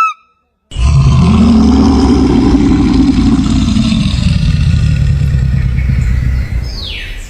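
A large animal's long, low, rough growl, starting about a second in and lasting some six seconds before fading. It is preceded by the tail end of a higher pitched call, and a brief falling squeal comes near the end.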